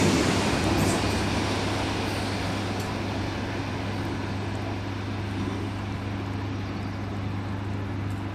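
Passenger train that has just passed underneath running away along the line, its rumble fading steadily, over a steady low hum.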